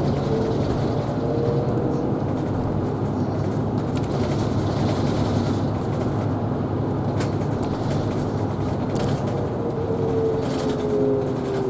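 Isuzu Erga Hybrid city bus driving, heard from inside the cabin: steady running noise, with a whine that falls in pitch near the start and again near the end.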